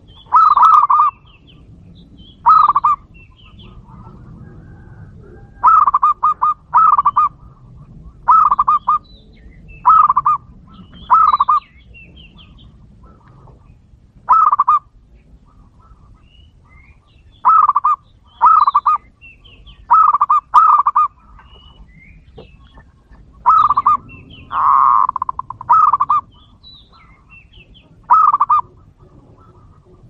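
A dove cooing in short, rapidly pulsed phrases, each about half a second long and repeated every one to three seconds, with faint chirps of other birds behind.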